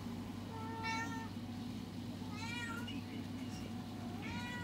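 Domestic cat meowing three times, each meow short and about a second and a half apart, over a steady low hum.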